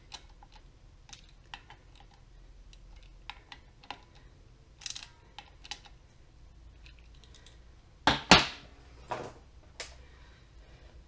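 Light metallic clicks and ticks of a hand driver nipping up the spring bolts on a six-spring ball-and-ramp slipper clutch pressure plate, with a couple of louder sharp knocks about eight and nine seconds in as tools are handled.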